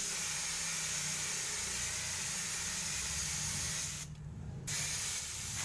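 Gravity-feed paint spray gun with a 1.3 mm nozzle, hissing steadily as compressed air at about 20 PSI sprays base coat onto a car bumper. The hiss stops for about half a second around four seconds in, then starts again.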